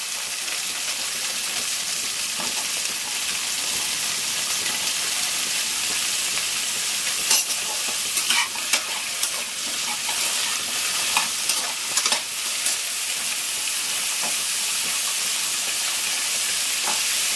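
Vegetable pieces sizzling steadily in hot coconut oil in an aluminium pressure cooker as they are sautéed, with a slotted steel spatula stirring them and clinking against the pot a few times midway.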